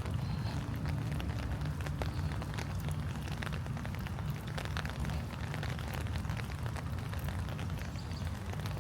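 Steady rain falling on leaves and a forest path: a dense patter of separate drops over a low, steady rumble.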